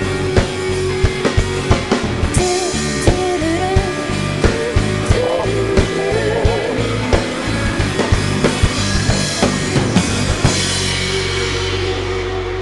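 Live rock band with drum kit, bass and electric guitar playing an instrumental passage to a steady beat. About ten seconds in the drums stop and a last chord rings on and slowly fades: the song's ending.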